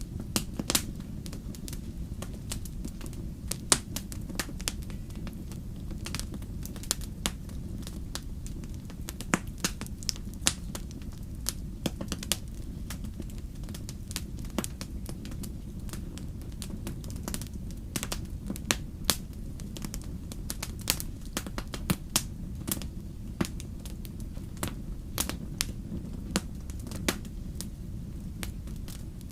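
Wood fire burning, a steady low rumble of flames with many sharp, irregular crackles and pops of burning logs.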